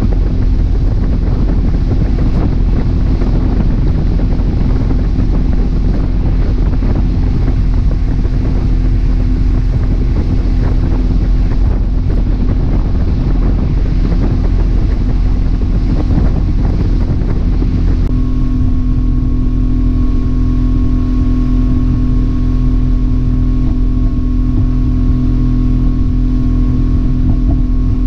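Boat engine running steadily under way, with wind and water rushing over the microphone. About two-thirds of the way through, the rushing eases and the engine's steady hum stands out more clearly.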